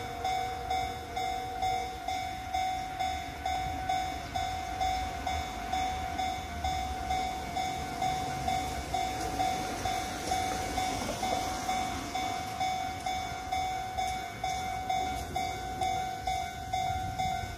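Railway level-crossing alarm ringing, one high tone struck evenly about one and a half times a second: the crossing warning for an approaching train.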